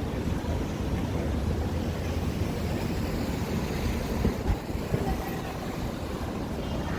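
City street ambience: a steady low rumble of passing traffic, with a few short knocks about four to five seconds in.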